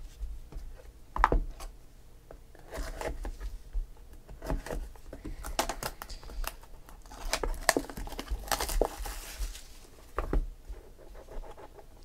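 A cardboard trading-card hobby box handled by hand: scattered knocks and taps of cardboard as it is slid off a stack and its lid worked open, with a stretch of crinkling and rustling about eight and a half seconds in.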